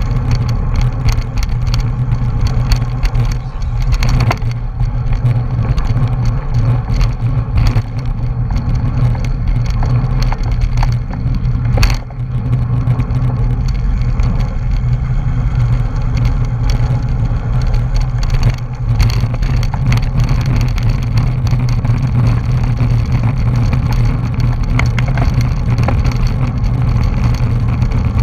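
Wind buffeting and road rumble on a camera mounted on a racing bicycle ridden at speed: a loud, steady, low rushing noise, with one sharp knock about twelve seconds in.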